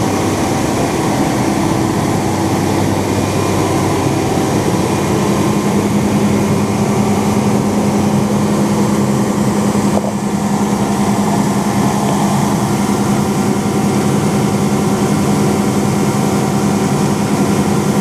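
Tractor engine running steadily at a constant hum while a grain auger carries shelled corn, tipped from a truck into its hopper, up into a bin.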